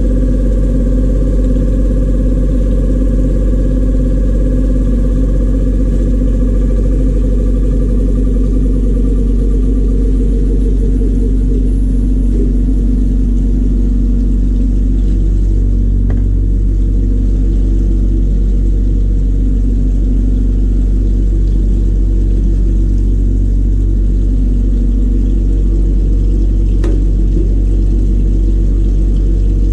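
Steady, loud, low machine drone that holds unchanged throughout, with a couple of faint clicks.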